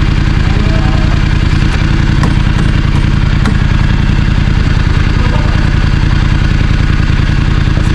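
Voge DS900X motorcycle's parallel-twin engine idling steadily.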